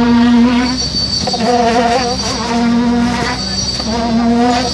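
Concrete poker vibrator buzzing with a steady high hum, rising and dipping in about four pulses of roughly a second each as it works the freshly poured concrete.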